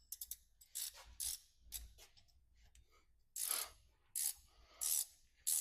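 Ratchet wrench clicking in short strokes as bolts are run down on a John Deere 4230 Syncro Range transmission: a quick run of clicks at the start, then a rasp of clicks every half to three-quarters of a second.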